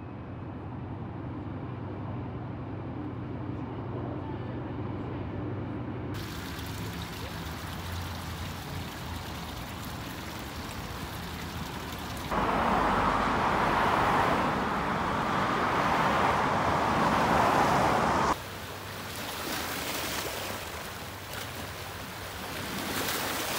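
A run of outdoor water and city sounds. For the first few seconds there is a low steady hum of traffic. About halfway through, a fountain's water pours and splashes loudly and evenly over sculpted metal leaves into a pool, then cuts off suddenly. Near the end, small waves wash and splash over shoreline rocks along a stone seawall, swelling and easing.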